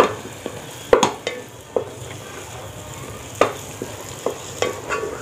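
Wooden spatula stirring semolina halwa in a metal pot, with irregular scrapes and taps against the pot over a faint steady sizzle from the cooking.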